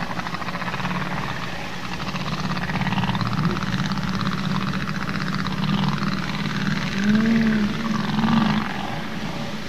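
Humpback whale song recorded underwater: wavering, sliding moans and squeals over a steady low hum, with two louder arching moans about seven and eight and a half seconds in.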